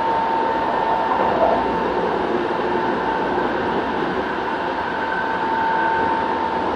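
Kobe City Subway 1000 series train with Hitachi GTO inverter drive, running: a steady rumble of wheels on rail with a steady whine held at one pitch.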